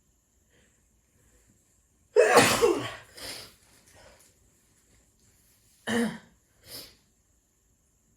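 A woman's single sneeze, set off by sniffing pepper, loud and sudden about two seconds in and trailing off over about a second. Two shorter, quieter breath sounds follow a few seconds later.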